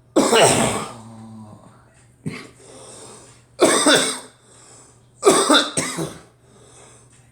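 A person coughing repeatedly: a long harsh cough right at the start, a short single cough about two seconds in, another about halfway through, then two coughs in quick succession.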